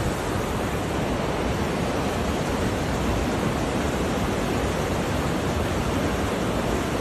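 Creek water rushing over rocks, a steady, unbroken rush.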